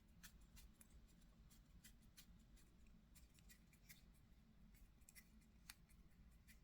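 Faint, irregular light clicks and ticks of small metal knife parts and a small driver being handled while the folding knife's clip side is put together.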